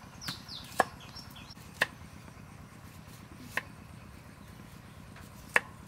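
Kitchen knife slicing through raw carrot and striking a round wooden chopping block: about five sharp chops at uneven intervals.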